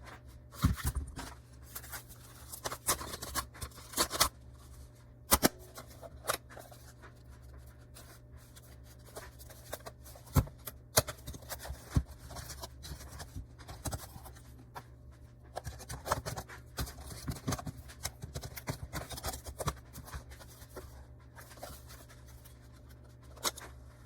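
Irregular clicks, taps and scraping of small objects being handled, over a steady low hum.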